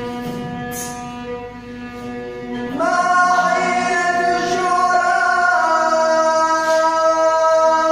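Arabic mawwal vocal improvisation: a quiet held accompaniment, then about three seconds in a male voice comes in loud on a long, steady held note that steps to a new pitch partway through.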